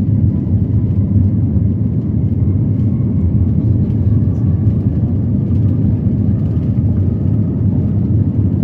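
Aeroplane taking off, heard as a loud, steady low rumble of engines and airframe that holds even throughout.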